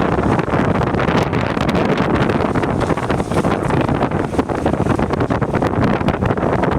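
Strong wind buffeting the microphone: a loud, rushing roar with rapid crackles that starts and cuts off abruptly.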